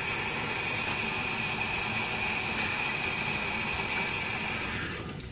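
Small engine of a gold sample mill running steadily, with wash water rushing through the mill's screen. The sound drops off near the end.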